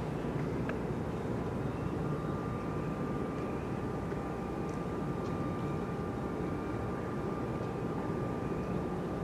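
Steady low rumbling dockside ambience, with a faint thin steady whine joining about two seconds in.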